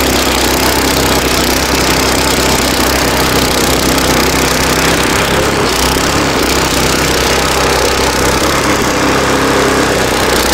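Small engine of a homemade mini tractor with a rotary tiller, running steadily in a fast gear while tilling soil.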